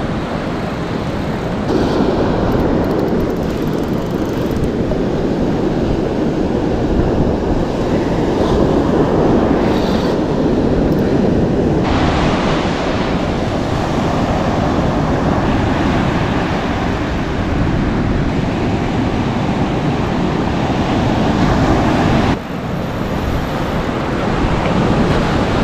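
Surf washing on the shore with wind rushing over the microphone, a steady low noisy rush that shifts abruptly in level a few times, with a brief drop near the end.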